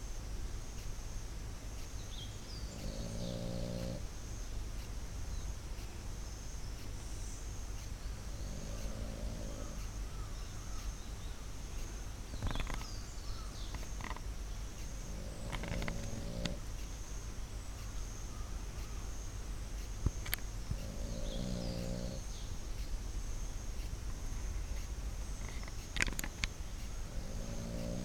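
A sleeping pet snoring loudly: five snores of about a second each, roughly every six seconds.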